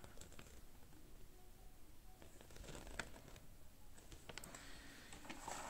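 Faint rustling of a paper instruction leaflet being handled, with a few light ticks scattered through it.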